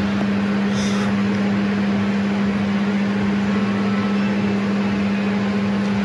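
Steady mechanical hum of a ventilation fan: one strong low tone over an even hiss, unchanging throughout.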